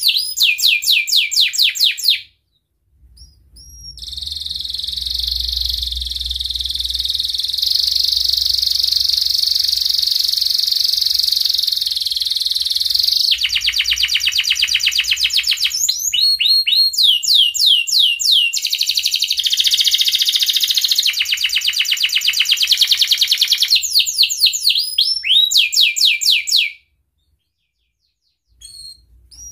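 A male domestic canary in breeding condition singing. Its phrases of rapid repeated chirps run into fast rolling trills, one of them a long roll lasting about nine seconds. The song breaks off briefly about two seconds in and again near the end.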